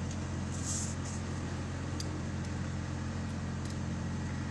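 Diesel engine of a utility digger-derrick truck running at a steady idle, a constant low hum.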